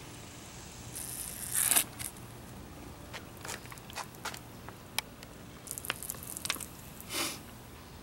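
An aluminium soda can handled and drunk from: a short slurp about a second and a half in, then scattered light clicks and crinkles of the thin metal as it is tipped and turned over.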